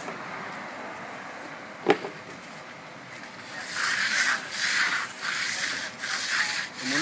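Hand float scraping back and forth over fresh, wet concrete to finish the slab surface, in strokes about twice a second that start about halfway through. A single sharp knock about two seconds in.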